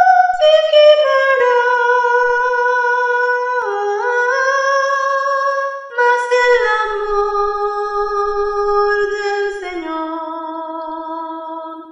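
A soprano voice humming the soprano part of a choir hymn without words, a single melody in long held notes that steps down in pitch to its lowest note near the end.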